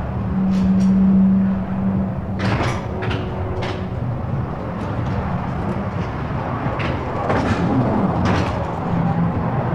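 Fairground ride running with a steady rumble, a low hum, and repeated sharp knocks and clatters.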